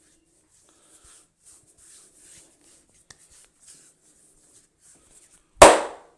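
Barber's hands during a head massage: faint, soft rubbing over hair and skin, then one loud, sharp crack near the end that dies away quickly.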